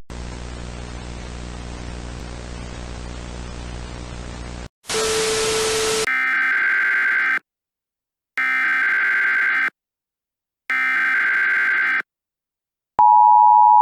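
Emergency Alert System broadcast tones. A hissy, droning hum gives way to a short burst of static, then come three bursts of SAME header data tones about a second apart. The two-tone EAS attention signal begins about a second before the end.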